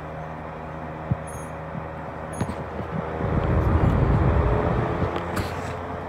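General Electric three-speed box fan running with a steady hum. About three seconds in, a low rumble of its air blowing on the microphone rises for a couple of seconds, then settles.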